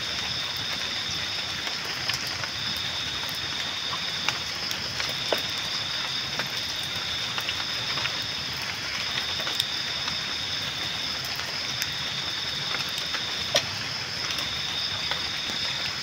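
Wood campfire burning: a steady hiss with sharp crackles and pops scattered through it, the loudest a little before the end. Behind it, a high-pitched trill stops and starts every couple of seconds.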